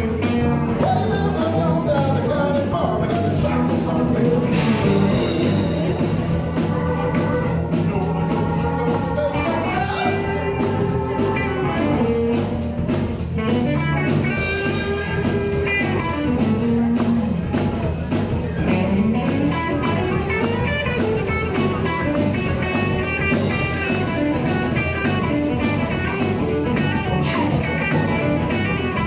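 Live blues-rock band playing with electric guitars, bass, drums and keyboard over a steady beat, with sustained and bending lead notes.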